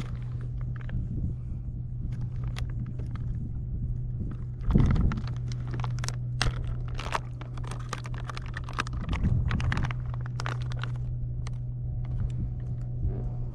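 Small clicks, knocks and rustles of hands handling fishing tackle and a plastic soft-bait bag aboard a kayak, with one heavier thump about five seconds in, over a steady low hum.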